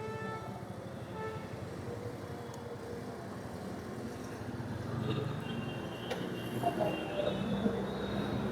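Steady vehicle noise, a low rumble that swells slightly about five seconds in.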